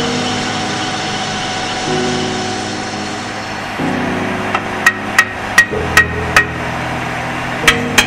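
Hammer blows on metal: five sharp strikes at a steady pace about halfway through, then two more near the end, each leaving a brief ring. Background music plays underneath.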